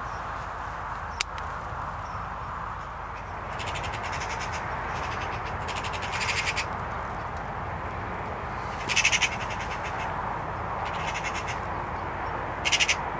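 Eurasian magpies giving their rapid rattling chatter in about half a dozen short bursts, the loudest about nine seconds in and near the end: the agitated call of magpies reacting to a decoy magpie. A single sharp click about a second in.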